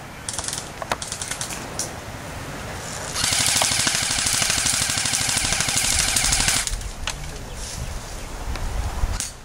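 Airsoft rifle firing one long full-auto burst of about three and a half seconds, starting about three seconds in, after a few scattered sharp clicks.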